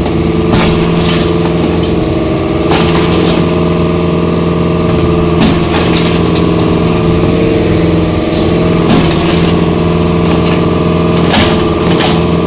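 Excavator's diesel engine running steadily while it demolishes a house, with irregular cracks and knocks of breaking wood and debris every second or few seconds.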